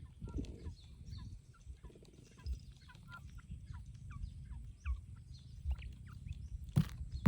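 Small birds chirping: many short, falling chirps scattered through, over low rustling and handling noise. A few sharp knocks come near the end.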